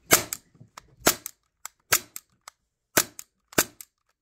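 Belt-fed Glock 17 pellet pistol's action snapping sharply with each trigger pull, about once a second, each snap followed quickly by a softer click. The pistol is malfunctioning and jamming, from damage at the rear of the barrel.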